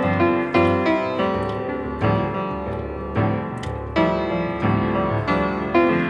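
Handpan music, a Vadjraghanta steel hand pan: melodic struck notes about every half second, each ringing on and overlapping the next over repeating low notes.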